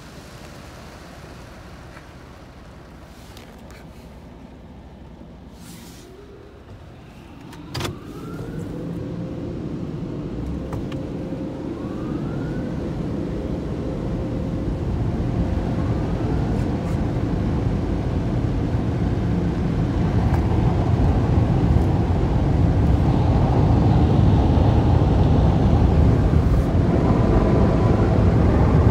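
Car wash air dryer blowers of a Mark VII ChoiceWash XT switching on with a click about eight seconds in. They spin up into a steady hum and rush of air that keeps growing louder.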